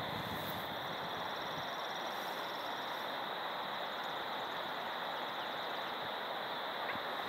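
Steady outdoor background noise with no distinct events, and a faint high trill from about one to three seconds in.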